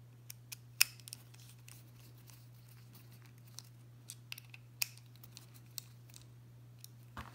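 Small sharp metallic clicks and ticks of a precision screwdriver bit working small screws into a folding knife's titanium handle scales, irregular and spaced out, with a louder click about a second in and another near the end.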